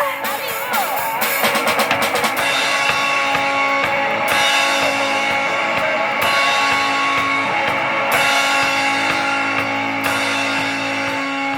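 Rock band playing live without vocals: a fast drum fill over the first two seconds or so, then held guitar chords over drums and cymbals.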